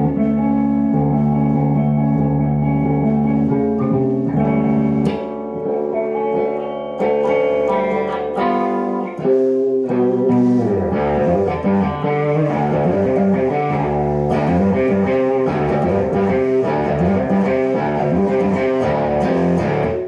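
Les Paul-style electric guitar being played to test it after a repair to its pickup selector switch: long ringing chords at first, then faster, busier picking from about halfway in.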